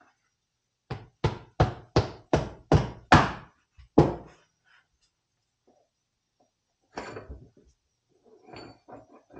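A run of eight sharp hammer blows on metal, about three a second, on the front end of a 1966 Harley-Davidson FL being taken apart. A few lighter knocks and clatter follow near the end.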